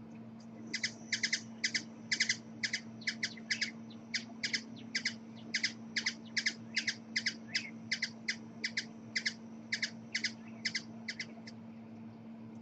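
Hummingbird giving a long series of short, sharp chip calls, about three a second, that stop near the end, over a steady low hum.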